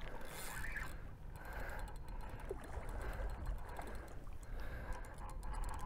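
River water lapping and rippling in soft swells, with a steady low wind rumble on the microphone.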